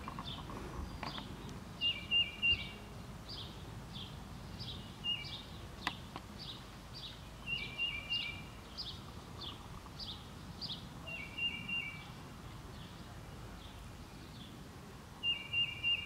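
Wild songbirds singing. One repeats a short phrase of a few quick notes about every three seconds, and another gives a steady run of high down-slurred notes, over a soft outdoor background.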